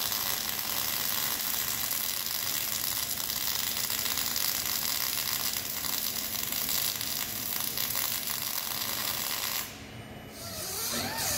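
MIG welding arc crackling and hissing steadily as hardfacing wire is laid on the steel bucket. It stops abruptly near the end.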